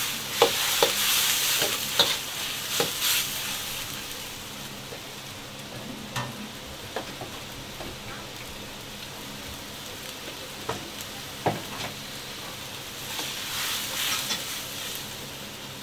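Vegetables sizzling in a wok while a metal ladle stirs them, with sharp knocks of the ladle against the wok. The sizzle swells in the first few seconds and again near the end.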